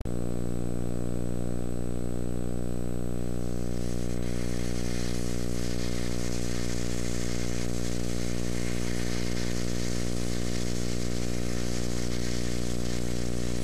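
A steady low buzz, a deep hum with many overtones that never changes in pitch or level. A hiss joins it about four seconds in.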